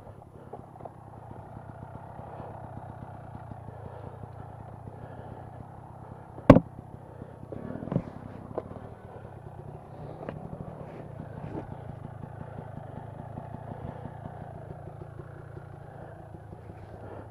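Dirt bike engine idling steadily at low revs. A sharp, loud knock comes about six and a half seconds in, and a smaller one near eight seconds.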